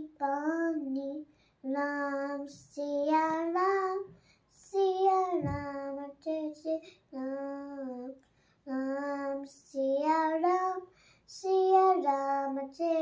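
A young girl singing a Hindi devotional song (bhajan) unaccompanied, in short held phrases with brief pauses between them.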